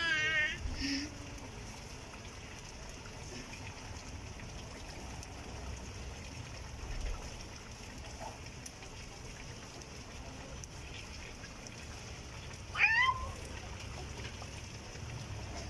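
A short animal call, rising in pitch, heard once near the end over a low, steady background hum.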